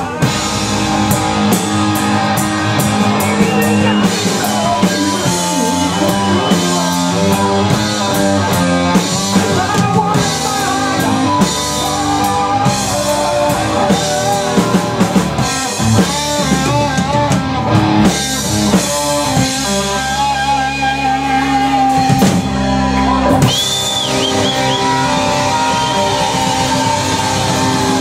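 Live rock band playing a slow blues: electric guitars, bass and drum kit together, with sustained, wavering lead notes over the accompaniment.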